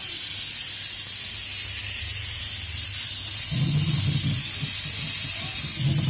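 Tap water running hard into a stainless steel kitchen sink, a steady loud hiss.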